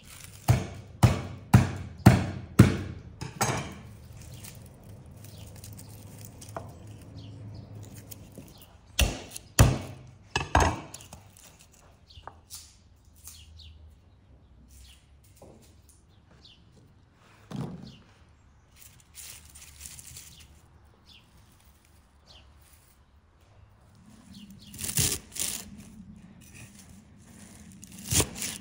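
Kitchen knife chopping on a wooden cutting board. A quick run of sharp chops comes at the start, with more chops in small groups later. Between them are quieter stretches of cutting and peeling garlic cloves, and fresh herbs are chopped near the end.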